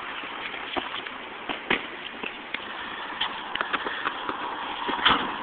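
Scattered footsteps on a concrete footpath over steady outdoor hiss, as a person walks and then breaks into a run.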